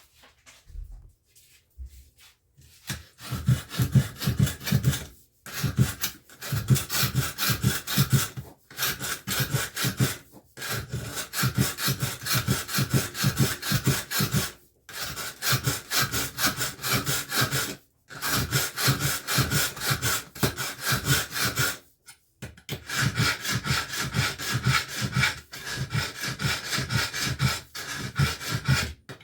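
Kitchen knife being sharpened on a sharpener: rapid back-and-forth scraping strokes in runs of a few seconds with short breaks. This restores a blade that had gone dull.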